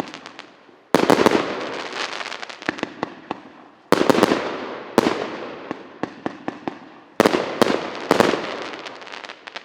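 A 61-shot firework cake firing: loud bangs come singly or in pairs every one to three seconds, and each trails off into crackling pops that die away.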